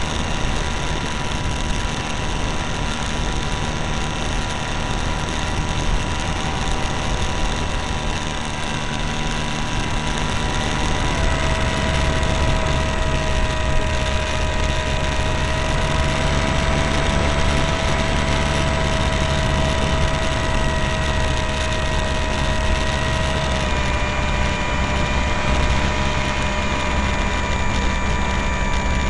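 Model airplane's motor and propeller running steadily in flight, heard through the onboard camera with rushing air. The pitch drops slightly about eleven seconds in and shifts again near the end as the throttle changes.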